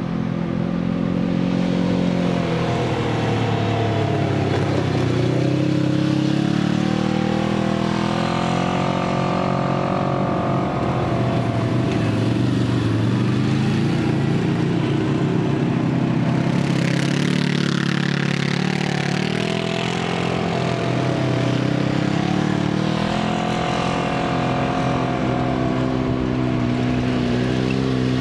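Off-road vehicle engine running on a trail, its pitch rising and falling as the throttle opens and closes. About two-thirds of the way through, a rushing hiss rises over it.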